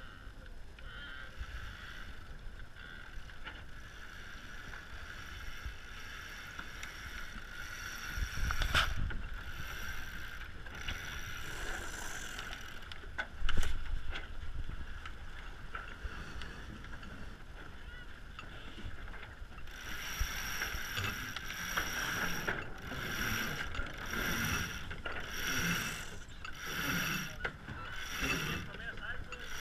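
Water rushing along the hulls of an Extreme 40 racing catamaran under sail. A sharp knock comes about a third of the way in and a louder one near the middle. In the last third the water surges regularly, about once a second.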